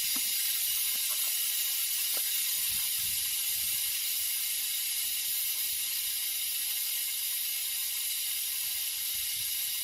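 Air hissing steadily out of a car tire's open valve stem with the valve core removed, as the tire deflates.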